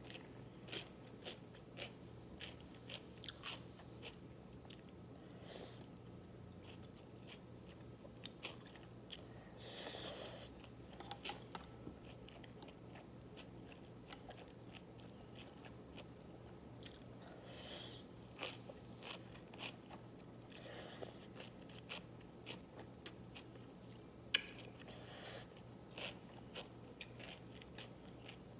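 Close-up eating sounds of naengmyeon with cucumber: chewing and biting with crisp crunches and many small mouth clicks, plus a few longer, louder noisy bursts, over a faint steady low hum.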